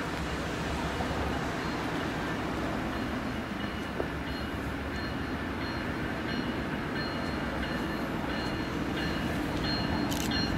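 An approaching train: a steady rumble of locomotive and rails that slowly grows louder as it nears, with faint, broken high-pitched ringing over it.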